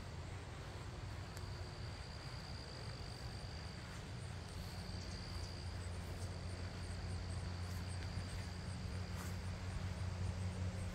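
Insects trilling in a steady high-pitched drone, with a low rumble underneath that grows a little toward the end.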